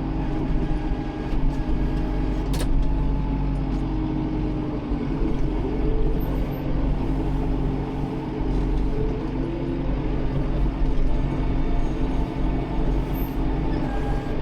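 Tractor engine running steadily at an even speed, with one sharp click about two and a half seconds in.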